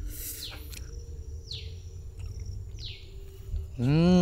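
A bird's short call, falling in pitch, repeated three times about a second and a half apart. Near the end a man gives a loud drawn-out "mmm" of relish that rises and falls in pitch, savouring a mouthful of soan papdi.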